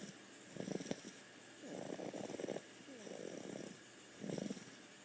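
Snoring from a sleeper who is sick: several breaths in a row, each a rattling, fluttering snore that sounds like a purring cat.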